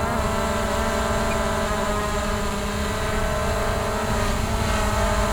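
An aircraft's propeller engine running steadily: an even, constant-pitch drone over a low rumble.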